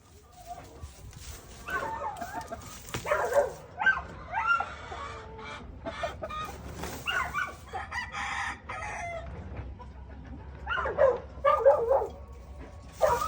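Roosters crowing and chickens clucking, several calls coming in clusters with short pauses between them.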